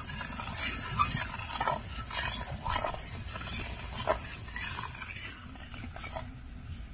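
A metal spoon stirring and scraping in a pan of thick sugar syrup boiling on the stove, with two sharper clinks against the pan, about a second in and about four seconds in.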